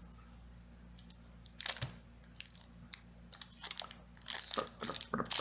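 Foil Pokémon booster pack wrapper crinkling as it is handled and torn open: a run of sharp crackles starting about a second and a half in and growing busier toward the end.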